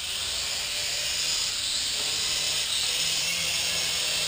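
Small quadcopter drone flying close by, its electric motors and propellers giving a steady whirring hiss, with a low hum joining about three seconds in.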